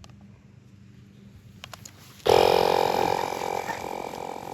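Air compressor motor starting suddenly a little over two seconds in and running with a steady hum and hiss as it pumps air into a ball.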